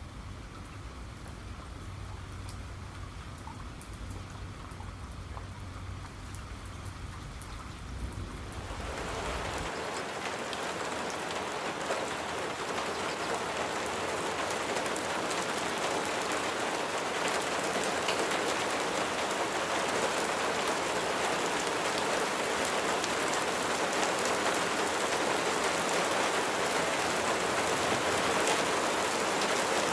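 Rain falling steadily. For the first eight seconds or so it is lighter, over a low rumble. About nine seconds in it becomes heavier and louder, a dense even hiss that then keeps building slightly.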